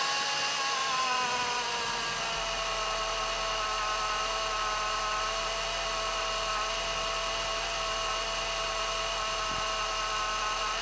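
Opel Corsa C engine idling with a high-pitched whining from its refurbished alternator. The whine drops slightly in pitch over the first two seconds, then holds steady.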